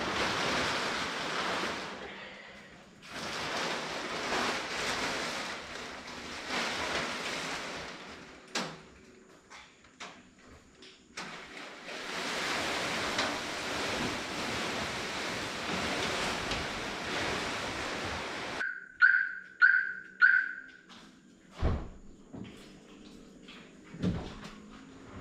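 Fabric car cover on a Toyota HiAce van rustling and swishing in several long drags as it is pulled off. Near the end come three short electronic beeps, then a door thunk and a second knock a couple of seconds later as the van's door is opened.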